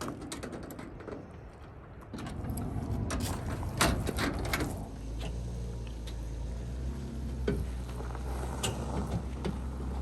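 Mechanical clicks and rattling knocks, then from about halfway a vehicle engine running steadily at a low idle-like hum.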